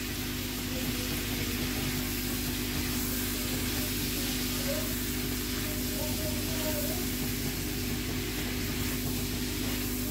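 Chicken liver and gizzards frying with chopped tomato in a nonstick wok, a steady sizzle as they are stirred with a silicone spatula, over a steady low hum.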